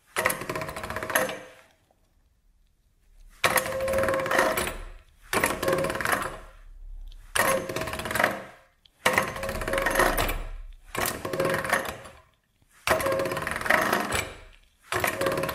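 Hand-cranked pasta machine being cranked, its steel gears and rollers clattering as a sheet of polymer clay is fed through. It runs in about seven short cranking runs of one to two seconds each, with brief pauses while the sheet is folded and fed again: the clay is being conditioned.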